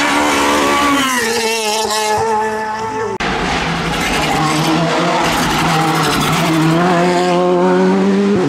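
Rally car engines at full effort: a Renault Clio rally car's engine falls in pitch as it lifts off and slows for a corner. After a sudden cut about three seconds in, a Volkswagen Polo R5's turbocharged four-cylinder accelerates away, its pitch rising steadily.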